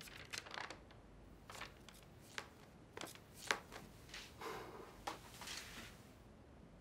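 Paper rustling as a cardboard document folder is opened and its pages leafed through: an irregular string of short, faint crackles, the loudest about halfway through.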